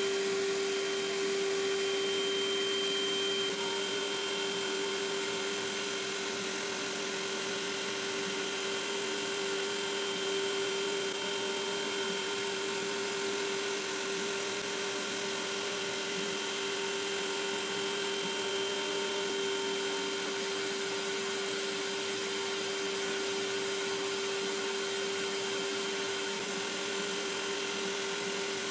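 Makera Z1 desktop CNC spindle running with a steady high whine while a 90-degree chamfer bit cuts along the edges of a wooden block, over an even rushing hiss.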